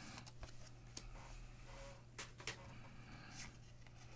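Faint rustling and scattered soft clicks of glossy football trading cards being slid one behind another in the hand while going through a pack.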